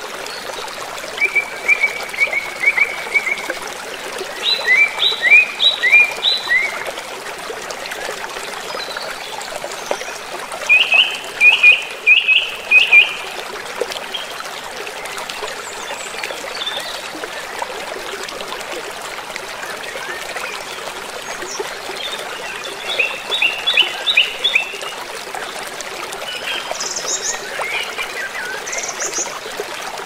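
A shallow rocky river rushing over boulders in a steady hiss, with a songbird giving several short bouts of quick repeated chirps over it, the loudest about eleven to thirteen seconds in.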